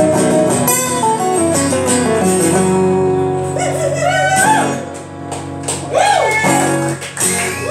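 Two acoustic guitars playing the instrumental ending of a country-blues song: strummed chords that ease off briefly about five seconds in, then come back for the closing chords.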